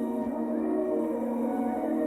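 Ambient drone music of layered, sustained tones that glide slowly in pitch, made from electronically shaped human voices.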